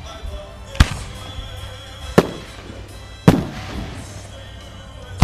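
Aerial firework shells bursting: sharp booms about a second apart, each trailing off in a fading echo.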